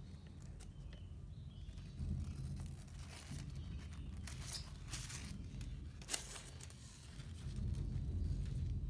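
Thin protective sheet being peeled off a MacBook Air's screen, crackling and rustling in uneven bursts with a sharp crackle about six seconds in. A low rumble of handling rises near the end.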